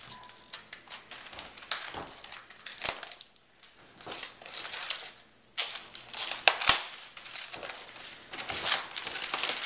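Packaging being worked open by hand: irregular crinkling, crackling and rustling, pausing briefly twice.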